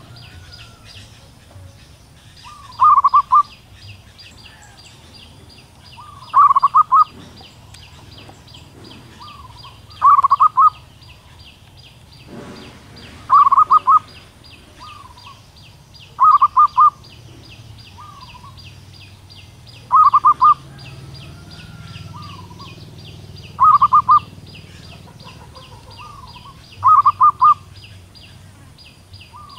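Female zebra dove cooing: a short burst of quick staccato coos repeated about every three and a half seconds, eight times, with softer single notes in between, over a steady, fast, high-pitched chirring in the background.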